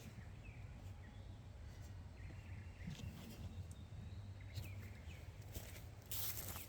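Quiet outdoor background with a steady low hum and a few faint ticks. A short burst of rustling noise comes about six seconds in.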